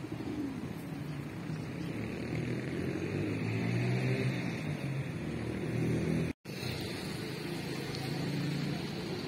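Street traffic: a steady low hum of motor vehicles over city background noise, cut by a brief dropout about six seconds in.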